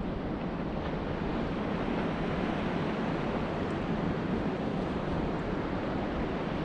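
Steady wind on the microphone over the sound of open water around a kayak, an even rush heaviest in the low end, with no motor tone.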